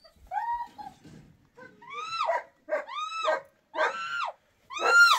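An animal crying out five times, about a second apart: high-pitched, drawn-out cries that each rise and then fall.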